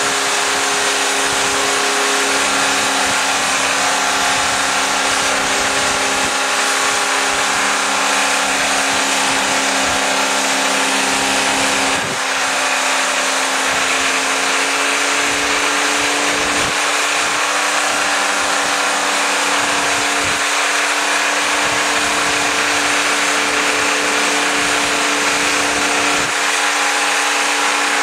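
Ford Falcon XE's 250 straight-six engine held at very high revs with no load, a loud, steady, high-pitched racing note as it is run flat out to destroy it. The note dips briefly about midway, then holds.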